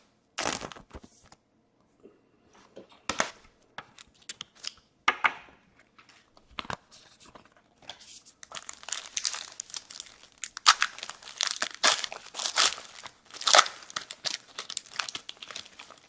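Trading card pack wrapper being torn open and crinkled: a few separate rips in the first seconds, then steady crinkling of the wrapper through much of the second half.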